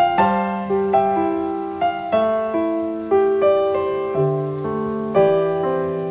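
Solo piano music: single notes struck about twice a second, each fading away.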